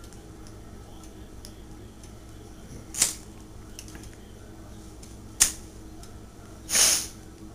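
A small lighter being flicked with the thumb: three short clicks and rasps a couple of seconds apart, the last a little longer, over a low steady room hum.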